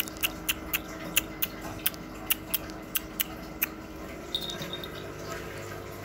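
Rapid, evenly spaced clicking, about four clicks a second, that stops about three and a half seconds in. A short high tone follows a little later.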